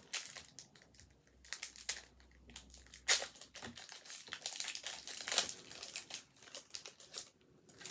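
Foil Pokémon booster pack wrappers crinkling as they are handled, in a string of irregular crackles with two louder ones about three and five and a half seconds in.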